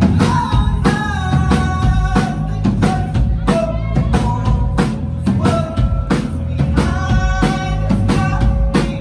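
Live rock band playing an instrumental passage between sung lines, the drum kit keeping a steady beat under held melodic instrument lines.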